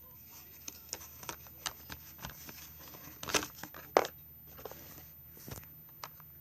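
Toy packaging being handled and opened: crinkling and rustling with scattered sharp clicks and snaps, loudest about three to four seconds in.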